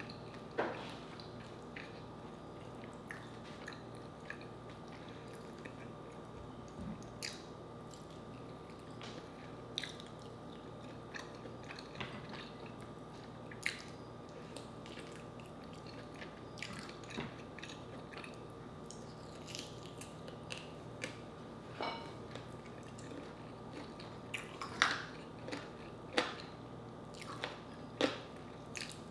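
Close-miked eating of fried chicken: scattered crunchy bites and wet chewing, with a few louder, sharper clicks and crunches near the end, over a faint steady hum.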